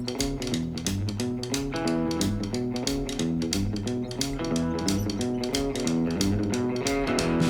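Background music: a guitar-led instrumental with a steady beat and a stepping melody.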